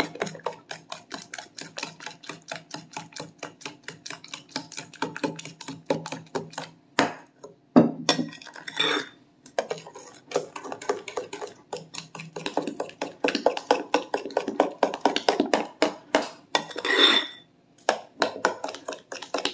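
Metal spoon stirring a runny batter in a glass mixing bowl, clinking and scraping against the glass about five or six times a second, with a couple of brief pauses.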